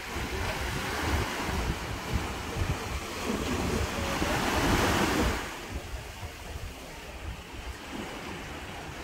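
Small waves breaking and washing up a sandy beach, with wind buffeting the microphone. The surf swells to its loudest about four to five seconds in, then falls away.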